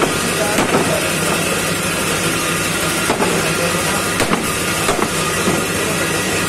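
A few sharp chops of a broad butcher's knife cutting beef on a round wooden log block, spaced irregularly, over a steady background hum and rumble like a running engine or traffic.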